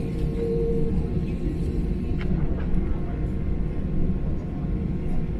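Airliner cabin noise inside an Airbus A320: a steady low rumble from the running engines and airframe, with a faint hum that fades about a second in and a few light clicks.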